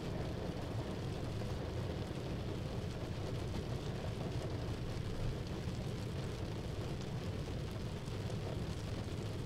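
A steady, deep rumbling noise with no separate events or rhythm.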